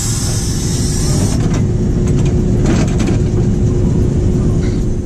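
Road traffic noise, a steady low rumble, with a brief hiss in the first second or so.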